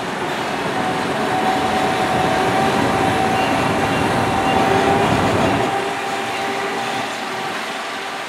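Open-sided parking tram running, heard from on board: a dense rumble with a steady high whine over it. Both fall off about five and a half seconds in.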